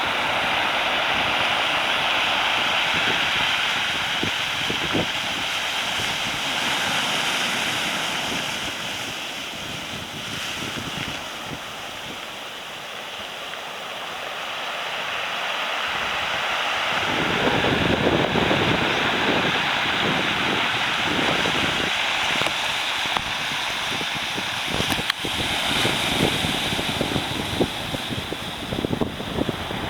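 Heavy ocean surf from a typhoon swell breaking and rushing on the shore, dying back for a few seconds and then surging again with a big wave about halfway through. Gusts of wind buffet the microphone.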